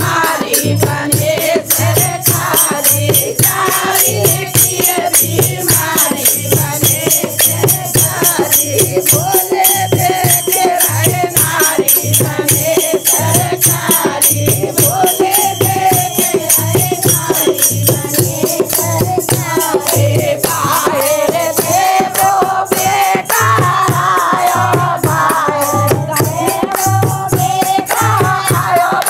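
A group of women singing a Hindi devotional bhajan to Shiva in chorus, with small brass manjira hand cymbals clashing in a steady quick rhythm, hand clapping, and a regular low drum beat underneath.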